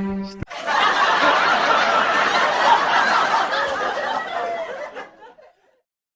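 Group laughter that breaks out just after the music stops and fades away about five seconds later.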